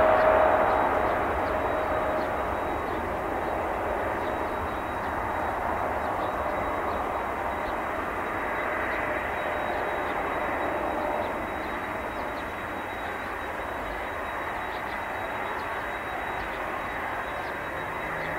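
Boeing 747-8F freighter's four GEnx jet engines running at power on the runway: a steady jet roar with a faint whine in it. It is loudest at the start and slowly fades as the aircraft moves away.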